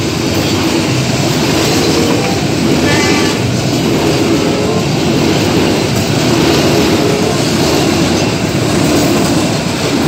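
Passenger train coaches rolling past close by at speed: a loud, steady rumble of steel wheels on the rails.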